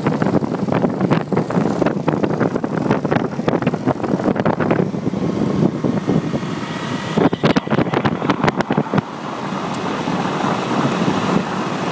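Wind buffeting the microphone on a moving small motorbike, with the engine running underneath. The gusts come irregularly, then steady and ease a little for the last few seconds.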